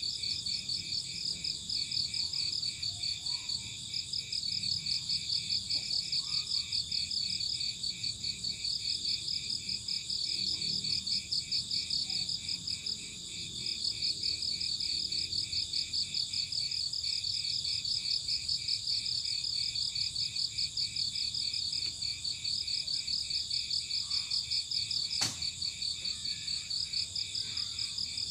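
Crickets chirping in an even, fast-pulsing chorus at several pitches, with one sharp click near the end.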